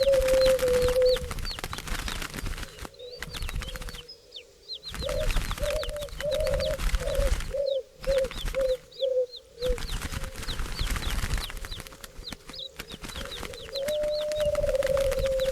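Birds calling. A low call of one steady pitch is held for about a second at the start and again near the end, with a run of short low notes in the middle. Under them run many quick, high chirps from small birds and a rustling haze that drops out abruptly several times.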